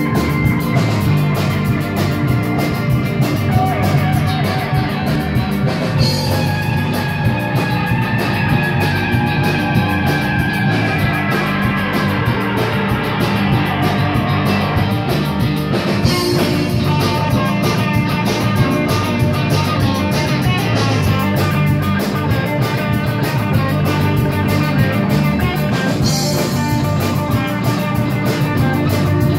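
Live rock band playing an instrumental passage: electric guitars over a drum kit, with cymbal crashes three times, about ten seconds apart.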